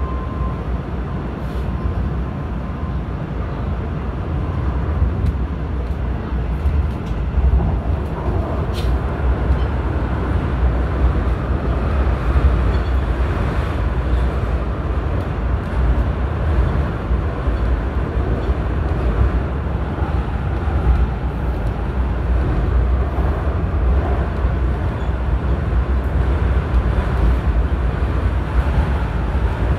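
Airport Railroad (AREX) all-stop commuter train running, heard from inside the passenger car as a steady low rumble of wheels on rails with a little wind noise.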